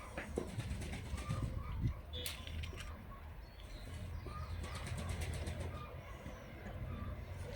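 Wind buffeting the microphone in a low rumble, with scattered small clicks and crackles and a few faint bird chirps.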